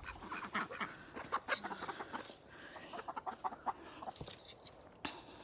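Chickens clucking, a quiet run of many short calls, as they gather for thrown mealworm treats.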